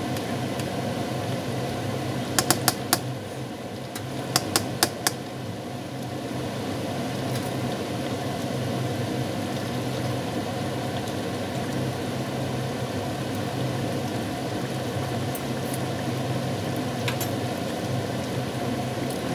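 A pan of chicken and vegetable stew simmering over a steady low hum, with two quick runs of about four sharp clicks a couple of seconds apart, around two and four seconds in.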